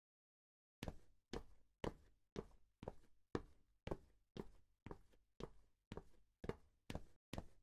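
Footsteps on a paved path at a brisk walk, about two steps a second, starting out of dead silence about a second in.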